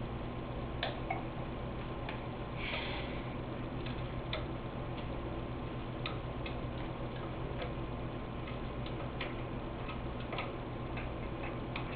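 Irregular light metallic clicks and taps of a wrench working the mounting bolts of a small engine's electronic ignition coil, with a brief scrape about three seconds in, over a steady low hum. The bolts are being loosened because the coil sits too close and rubs on the flywheel magnet.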